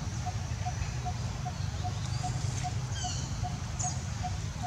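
Forest ambience: a steady low rumble, a soft short note repeating evenly about two and a half times a second, and a few brief high chirps, some falling in pitch, a little past the middle.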